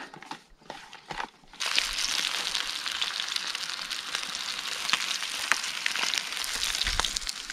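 Pieces of cornmeal-breaded tilapia frying in hot oil in a pan, a steady sizzle full of small crackles that starts suddenly about a second and a half in, after a few soft handling clicks.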